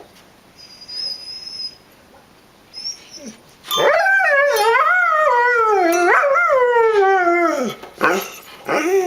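Dog howling: one long wavering howl of about four seconds that slides lower toward its end, after a short high-pitched whine, followed by two short yelps near the end.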